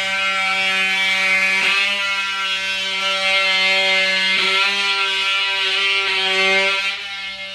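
Music: a distorted electric guitar holding one low, buzzy note, struck again three times, then fading near the end.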